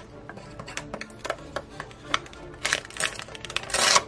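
Toy knife clicking and knocking against a velcro toy eggplant, then a short ripping tear near the end as the velcro-joined halves are pulled apart. Soft background music underneath.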